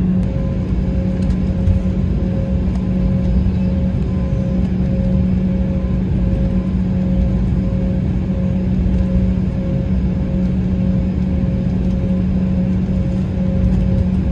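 Cabin noise of an Embraer E190LR taxiing after landing: a steady rumble from the GE CF34 turbofans at low thrust and the rolling airframe, with a constant low hum and a fainter pulsing tone above it.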